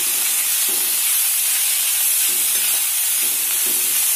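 Shredded cabbage, carrot and other vegetables sizzling in hot ghee in a pan while being stirred with a spatula: a steady frying hiss.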